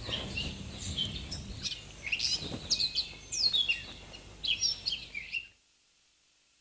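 Birds chirping: many short, quick calls and rising and falling whistles over a faint background hiss. The sound cuts off suddenly to silence about five and a half seconds in.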